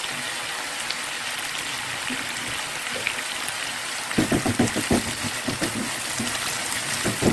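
Chicken pieces sizzling in oil in a nonstick frying pan, a steady crackling hiss. From about four seconds in, a spatula stirs and scrapes through the pan in a run of quick strokes.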